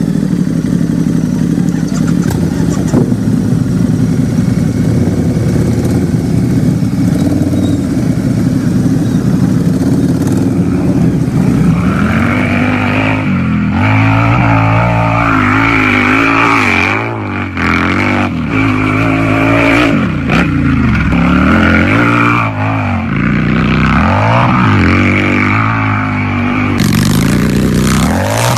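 Harley-Davidson motorcycle's V-twin engine idling steadily, then, from about twelve seconds in, revved repeatedly with the pitch rising and falling on each blip of the throttle.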